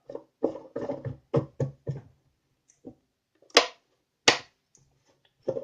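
Short handling sounds, then two sharp clicks under a second apart, as a freshly repaired LED bulb is put into a socket and switched on to test it.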